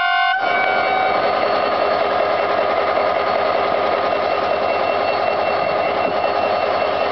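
Henschel diesel locomotive departing. A multi-tone horn note cuts off about half a second in and gives way to a loud, steady, noisy drone with faint steady tones running through it.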